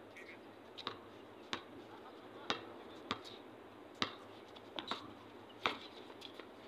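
A basketball bouncing on a hard outdoor court: a string of sharp, irregular knocks, roughly one or two a second.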